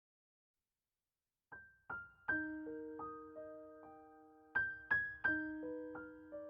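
Silence, then soft background piano music begins about a second and a half in: single struck notes ringing on and overlapping as a slow melody.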